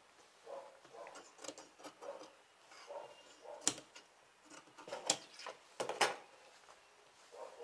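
Tailor's shears snipping fabric to trim a seam allowance even, amid cloth rustling; several sharp snips stand out in the second half.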